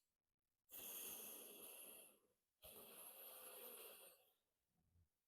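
Faint breaths drawn through one nostril during alternate-nostril breathing (anulom-vilom pranayama): two hissing breaths, each about a second and a half long.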